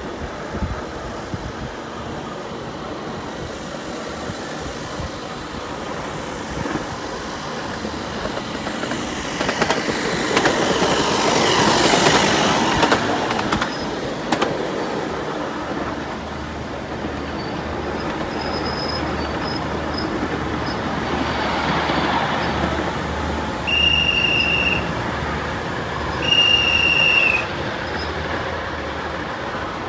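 Ride-on miniature railway train rolling along small-gauge track, its wheels clattering over the rail joints and squealing through the curves. Near the end come two short, high-pitched whistle toots.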